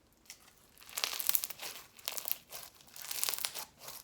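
Bingsu slime, a clear slime full of small plastic beads, crunching and crackling as it is squeezed and worked by hand, in bursts: one run about a second in, another about three seconds in, with shorter crackles between.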